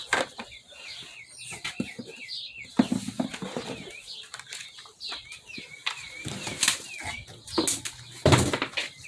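Packaging being handled during an unboxing: plastic and cardboard rustling, with knocks as parts are lifted out, loudest near the middle and near the end. A bird chirps over and over in the background.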